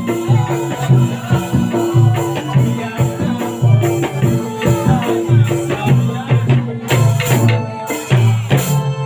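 Music with a steady beat: a repeating pattern of low pitched notes over regular percussion hits.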